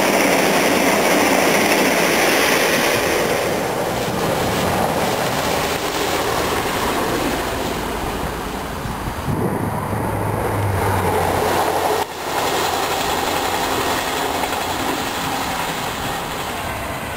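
Diesel passenger trains: one rushes past close at speed, then the steady rumble and low engine drone of further diesel trains approaching along the line.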